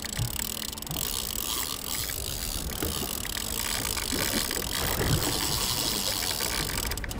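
Heavy fishing reel being cranked to work a hooked yellowfin tuna up, a fast run of small gear clicks over steady wind and sea noise.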